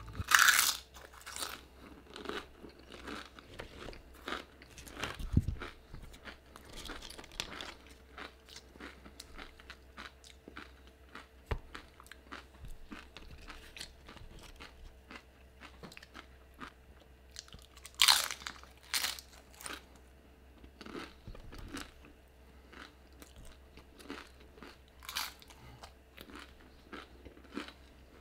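Tortilla chips dipped in nacho cheese and guacamole being bitten and chewed: a loud crunch right at the start and another about 18 seconds in, with smaller crunches and chewing in between.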